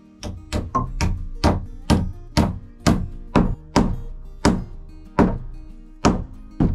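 Claw hammer driving a nail into a wooden rafter to toenail it to the wall's top plate: a run of about fourteen sharp strikes, roughly two a second, with a short pause near the end. Background music plays underneath.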